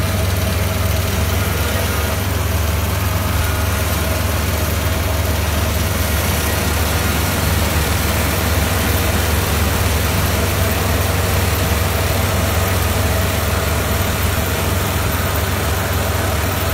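Kubota PRO588-I combine harvester's diesel engine running steadily at an even speed, a constant drone that does not rise or fall.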